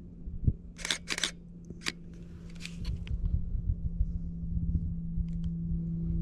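Camera shutter firing: two sharp clicks close together about a second in and a shorter click just after, followed by low rustling and handling noise.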